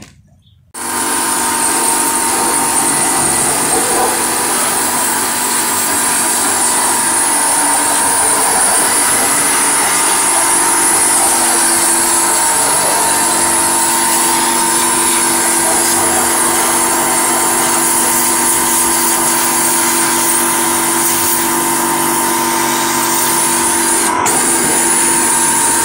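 Electric high-pressure washer running, its pump humming under the loud hiss of the water jet spraying a diesel engine block clean. It starts up about a second in and cuts out for an instant near the end.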